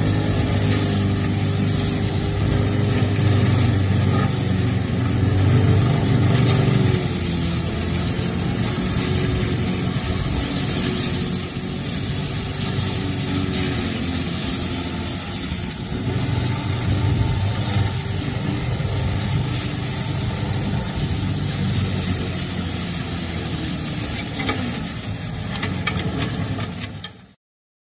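Hydraulic forestry mulcher on a 14-tonne wheeled excavator shredding tall grass and reeds, over the excavator's diesel engine running under load. A steady whine wavers and dips in pitch, and the sound cuts off abruptly near the end.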